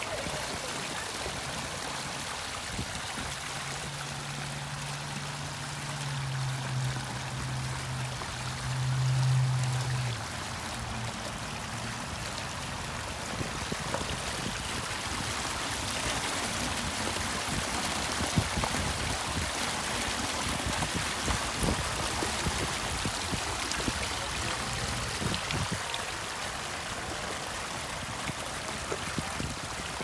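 Small garden waterfall running: water spilling over a flat stone ledge into a shallow pebble basin, a steady splashing trickle. A low hum swells during the first third and fades out about ten seconds in.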